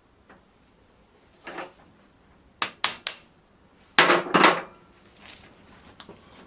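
Metal hand tools and parts clanking: a soft knock, then three quick sharp clinks about two and a half seconds in, then two louder clanks with a short ring around four seconds in.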